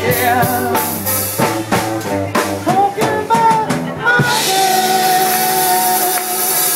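Live band playing: drum kit, guitars and a male singer. About four seconds in, the drumming stops and the band holds one long chord under a cymbal wash.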